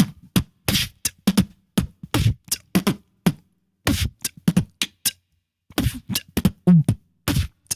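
Solo vocal beatboxing: a quick run of sharp drum-like sounds made with the mouth, with two short breaks.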